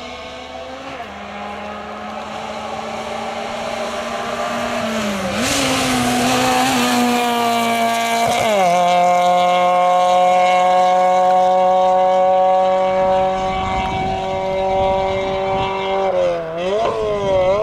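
Fiat Seicento's small four-cylinder engine revving hard under full acceleration in a slalom run, the pitch climbing as it passes with a rush of tyre and wind noise. Just after eight seconds in the revs drop sharply at an upshift, then hold steady and high; near the end they dip and pick up again as the car slows and accelerates through the cones.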